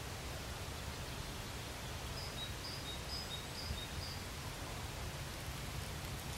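Steady outdoor hiss with a low rumble. About two seconds in, a bird's faint high two-note song repeats about five times.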